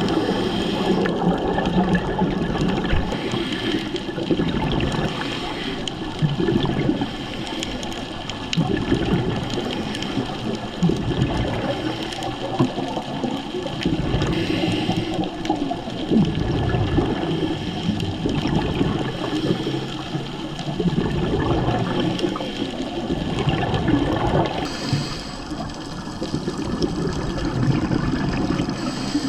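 Underwater scuba recording: a diver's regulator exhaust bubbles gurgling in swells every few seconds over a steady water noise.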